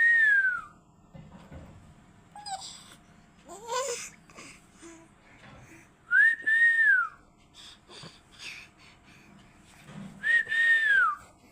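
Someone whistling three times: short high notes that rise then fall in pitch, once at the start, once about six seconds in and once near the end. A short rising squeal comes about four seconds in.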